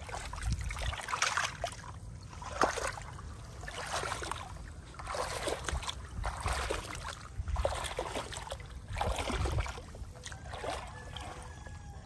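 Shallow pond water splashing and sloshing in irregular bursts as a woven bamboo basket is pushed and scooped through it and a person wades.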